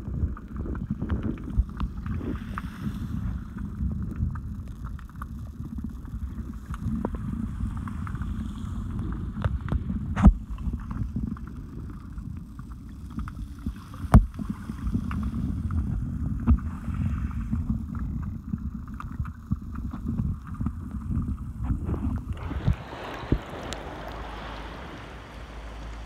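Shallow surf heard underwater through a phone in a waterproof pouch: a muffled low rumble full of crackling, with two sharp knocks about ten and fourteen seconds in. Near the end it changes to the open hiss of choppy sea as the phone comes above the water.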